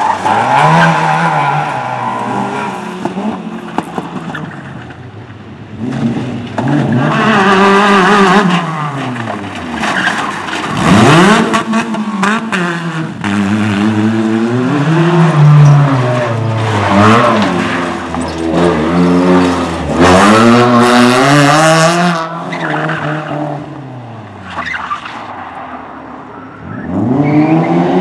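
Several competition cars, one after another, driven hard around a tight course on a loose, gritty surface. Their engines rev up and drop back repeatedly through gear changes and corners, with tyres skidding. Each run ends in a lull before the next car comes up, and a fresh car starts revving near the end.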